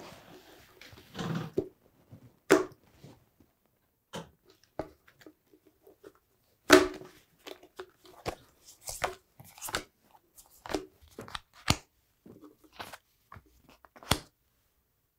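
Tarot cards handled and laid down on a satin cloth: a scattered run of short taps and soft rustles at an uneven pace.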